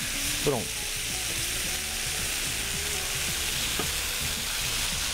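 Thin beef steaks sizzling in oil in a nonstick frying pan, a steady frying hiss as they are seared.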